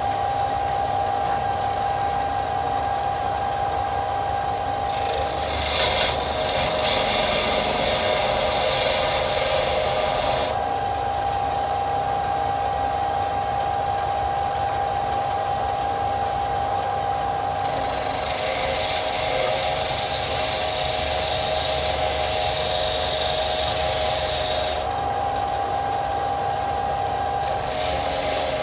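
Disc sander motor running with a steady whine while a thin steel blade is pressed against the sanding disc three times. Each pass is a loud, harsh grinding hiss lasting several seconds as the blade is sanded toward a mirror finish.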